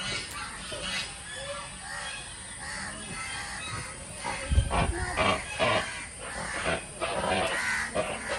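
Sarus crane calling repeatedly, its loud pitched calls coming again and again, with a heavy low thump about halfway through.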